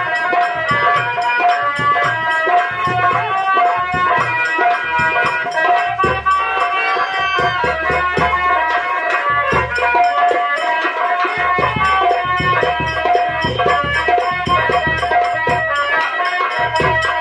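Live nautanki band music: a sustained melody over a steady beat of hand drums.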